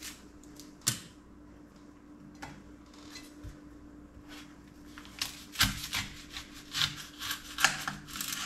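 Chef's knife slicing a peeled onion on a plate: quiet at first, then from about halfway a run of crisp cuts, the blade clicking against the plate a few times a second.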